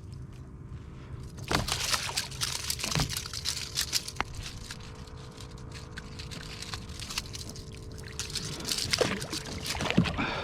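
Water splashing and trickling at the side of a kayak while a freshly caught ladyfish is handled, with a few sharper splashes about a second and a half in, around three seconds, and again near the end.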